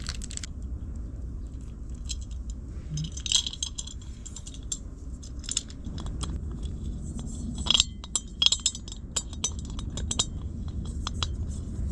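Scattered light metallic clinks and taps of cookware being put together: a pot lid, its knob and screw worked with a small multi-tool screwdriver. The clinks come irregularly, with a louder cluster about eight seconds in.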